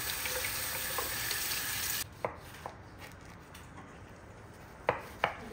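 Meat frying in a pot, a steady sizzling hiss that cuts off suddenly about two seconds in. It is followed by a few sharp knocks of a utensil against the pot, two of them close together near the end.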